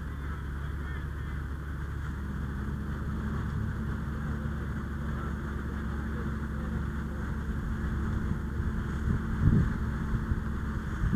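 A steady engine-like drone with a deep rumble; a steadier hum joins about two seconds in, and a single short thump comes near the end.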